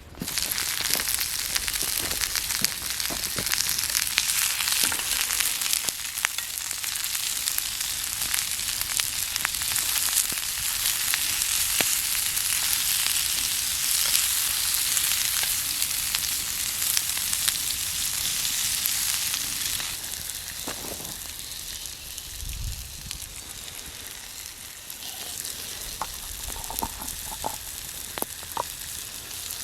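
Food frying over a campfire, a dense steady sizzle with scattered pops and crackles. It eases somewhat about two-thirds of the way through.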